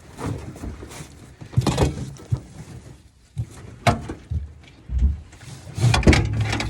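Irregular knocks, thumps and scraping noises while a large trout of about 10 pounds is landed and handled.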